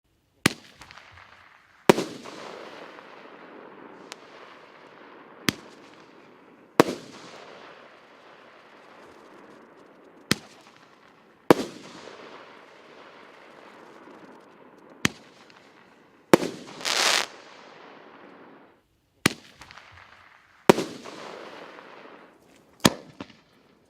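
Roman candle (30 mm, 8-shot) firing: about a dozen sharp reports of comets launching and bursting, spaced one to a few seconds apart, each trailing off in a rolling echo. About seventeen seconds in comes a longer, denser burst.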